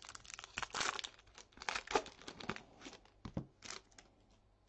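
A foil Topps trading-card pack wrapper being torn open and crinkled by hand: a run of sharp crackles that dies away about four seconds in.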